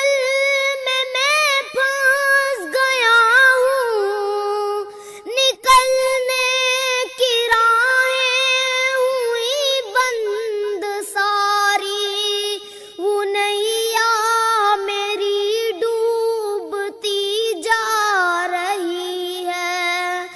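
A high, child-like voice singing an Urdu devotional song in long, ornamented held notes that bend and waver in pitch, with little or no instrumental accompaniment.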